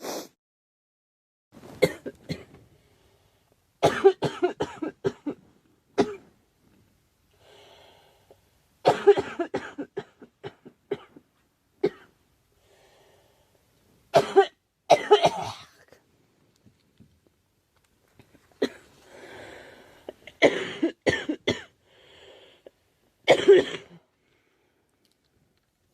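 A girl coughing in about seven separate bouts, several of them quick strings of coughs, with short pauses between.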